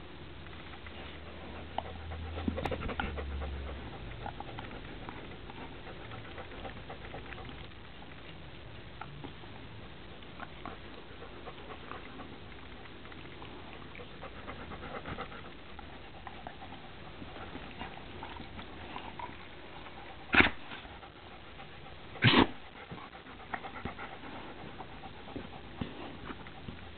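A dog licking a person's hand: soft, wet licks and mouth smacks, with the dog's panting breath. Two sudden loud bumps about two seconds apart near the end.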